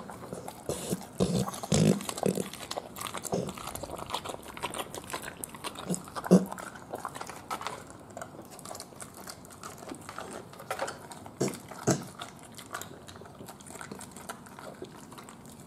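American Bully eating raw satin balls, a ground-beef mash, from a metal pan: wet chewing, smacking and licking. A few sharper knocks stand out, the loudest about six seconds in.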